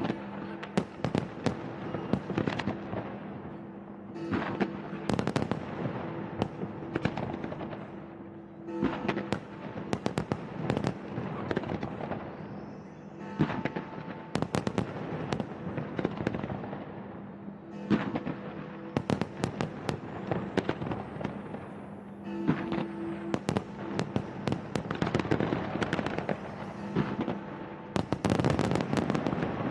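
Fireworks display: volleys of sharp bangs and crackling bursts coming in dense clusters every few seconds, with music playing steadily underneath.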